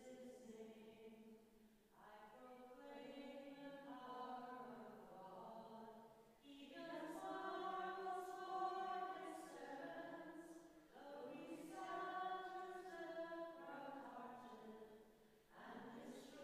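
Congregation singing a hymn in phrases of about four to five seconds, with short breaks for breath between them.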